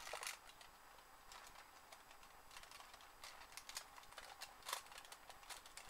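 Faint, irregular clicks and light rustling of small items being handled and moved about, as someone searches through things on a desk.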